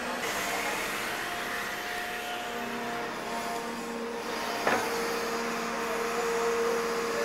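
Hydraulic excavator running at work: a steady engine drone with a few held tones from its hydraulics. A single sharp knock comes about four and a half seconds in.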